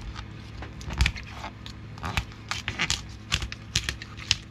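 Knife cutting through the shell of a raw spiny lobster tail: a string of irregular cracks and crunches, the loudest about a second in.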